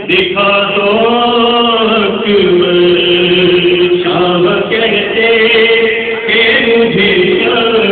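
A voice chanting a Muharram lament (noha) in long, drawn-out notes that bend and slide, with brief pauses for breath.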